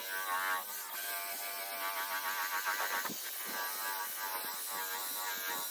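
Small electric polishing machine running with a buzzing whine as it buffs toothpaste into a plastic car headlight lens, its pitch wavering up and down under changing pressure.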